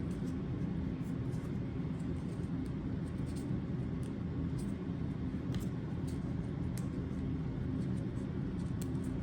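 Steady low machine hum, like a kitchen fan or motor running, with a few faint light ticks over it.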